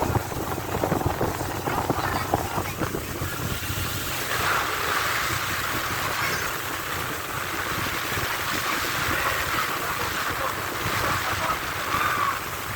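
Motorboat running steadily, its engine humming under the rush of water along the hull, with wind buffeting the microphone. The water rush grows louder about four seconds in.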